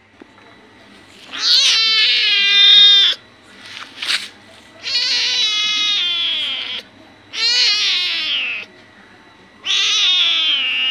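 Small ginger-and-white kitten meowing: four long, high-pitched calls of one to two seconds each, the pitch falling at the end of each, with a short sharp sound between the first and second.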